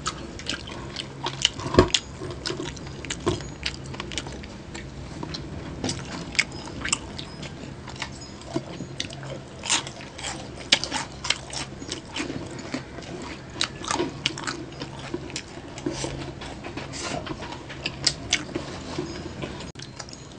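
Close-up eating sounds of crispy pata, deep-fried pork leg: biting, chewing and crunching the crisp skin, with many short, irregular clicks and smacks as the meat is torn apart by hand.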